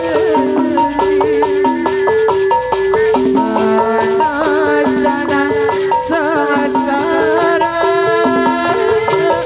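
Sundanese jaipongan music played by a gamelan ensemble: a metallophone repeats a quick alternating two-note figure over steady percussion, and from about four seconds in a wavering higher melody line joins it.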